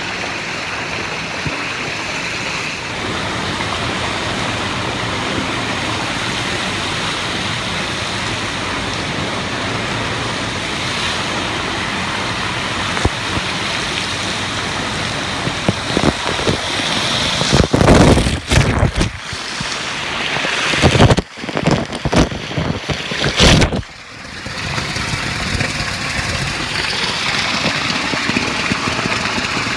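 Spa pool water jets pouring down and splashing into the water, a steady rushing noise close on the microphone, with louder, rougher splashing for several seconds a little past the middle.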